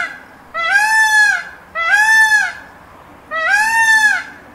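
Male Indian peafowl (peacock) calling: three loud, drawn-out cries about a second apart, each rising then falling in pitch, with the tail of another cry at the very start.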